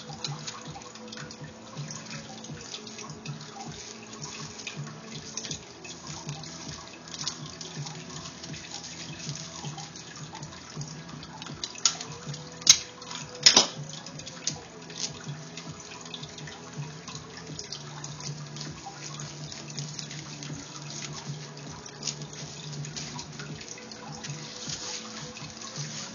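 Aquarium filter water trickling and splashing steadily, with scattered small clicks and two sharp, loud clicks about halfway through.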